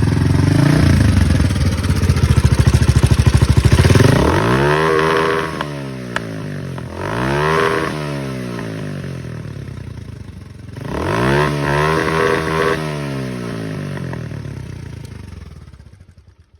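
Motorcycle engine running with a loud low rumble, then revved up and back down three times. The sound fades away near the end.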